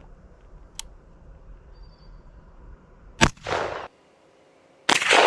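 Two shotgun blasts from Triple Decker shells (nine large metal pellets each), about a second and a half apart, each followed by a decaying echo; the second is the louder. A faint click comes about a second in.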